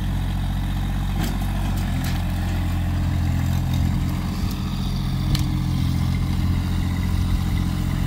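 Massey Ferguson sub-compact tractor's diesel engine running steadily while the tractor levels dirt with its front loader bucket, with a few short clanks on top.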